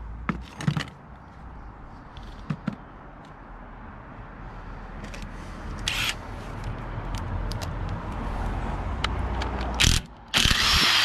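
Hand tools clicking and knocking on the car's front suspension parts over a low rumble that builds and then stops, followed by a loud scrape near the end.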